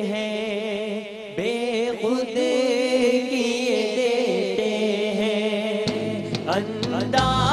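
Male voice singing a devotional Urdu qawwali line in long, ornamented held notes. Near the end, steady low accompanying tones and a few sharp percussive strikes come in.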